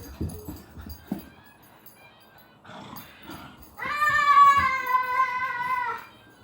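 A dog gives one long, drawn-out howl-like whine for about two seconds, starting sharply partway through. It holds a steady pitch that sags a little before it stops.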